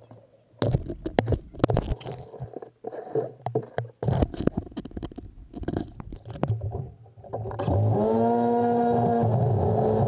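Snow being scraped and knocked off a snow-covered Craftsman garden tractor: a run of irregular scrapes and knocks. About eight seconds in, the tractor's engine starts, its pitch climbs briefly, and it settles into steady running.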